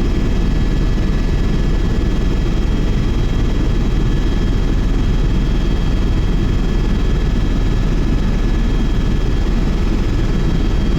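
Helicopter in flight heard from inside the cabin: a steady, loud low-pitched drone with a few thin, high, steady whining tones above it.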